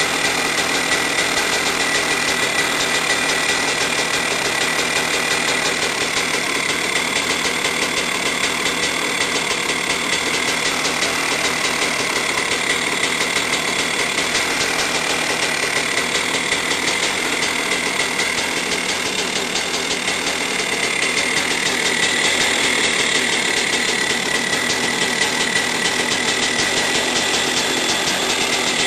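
Husqvarna XC250 two-stroke dirt bike engine, converted to GM HEI electronic ignition, running steadily, dipping slightly about twenty seconds in and picking back up.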